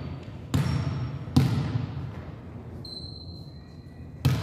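Volleyball being hit during a rally in a gym: two sharp, echoing smacks a little under a second apart early on, and another right at the end. A faint thin high squeak sounds in between.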